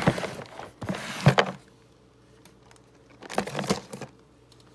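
Rustling, clattering and knocking of plastic storage tubs and packaged stamp sets being handled, with wooden stamps knocking inside a tub. It comes in three short bursts, with a sharp knock about a second and a quarter in and another rustle a little past three seconds.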